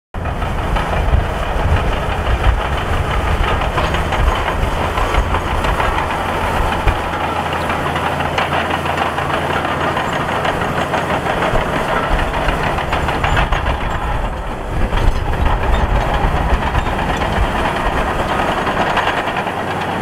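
Liugong B160C crawler bulldozer's diesel engine running under load with its steel tracks clanking and rattling as it pushes sand with the blade. The sound is steady throughout, with a brief dip and a rise in engine note just after the middle.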